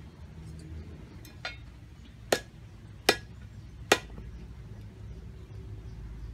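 Cleaver chopping on a wooden cutting board: a couple of light taps, then three sharp chops about three-quarters of a second apart.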